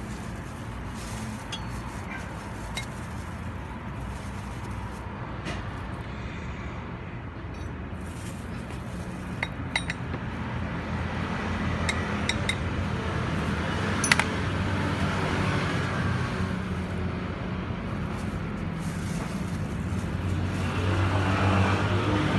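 An engine running steadily, getting louder over the last few seconds, with a few sharp metallic clinks around the middle.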